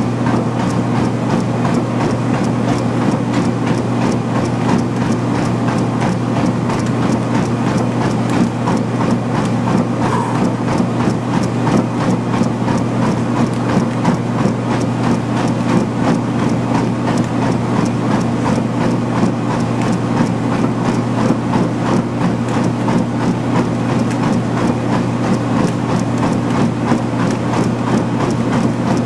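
Treadmill running fast at speed 10 (about 10 mph), with a steady motor and belt hum and the quick, even footfalls of a runner landing on the belt.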